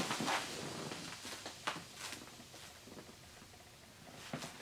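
A few faint knocks and clicks from a BMW Z3 M sport seat and its metal rail frame being handled, the loudest pair a little before the end.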